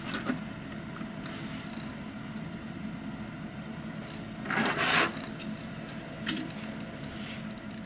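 Plastic toy cars handled on a tabletop: a brief scrape of plastic on the surface about five seconds in, as one car is slid and lifted away, with a few faint clicks over low room hiss.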